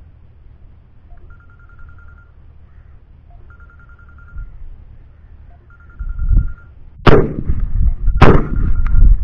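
Two shotgun shots about a second apart, the first about seven seconds in, each leaving a rumbling tail. Before them a faint, high, pulsing trill repeats about every two seconds.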